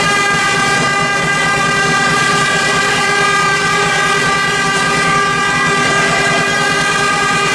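A loud, steady horn tone held without a break over the arena's crowd noise.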